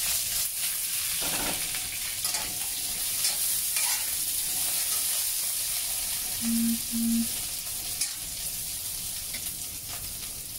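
Potato chunks frying in hot oil in a wok, a steady sizzle, with a few brief clatters early on as the pan is shaken and the pieces turned; they are being fried golden before braising. Two short low beeps sound a little past the middle.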